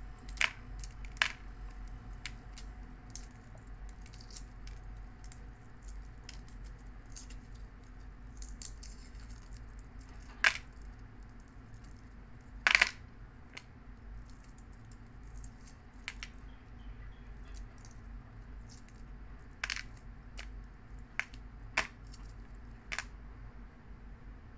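Hard-boiled eggshells being cracked and peeled by hand: scattered sharp crackles and clicks, with the loudest cracks about ten and thirteen seconds in.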